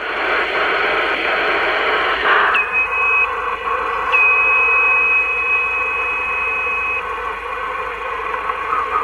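CB radio receiver in upper sideband on the 27.555 MHz calling frequency, its speaker giving steady band noise and static with no station coming through. A steady high whistle cuts in briefly about two and a half seconds in, then again from about four to seven seconds.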